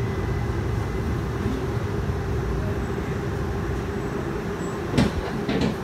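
Cabin noise inside an electric streetcar: a steady rumble with a faint hum, then a sharp clack about five seconds in and a few softer knocks just after.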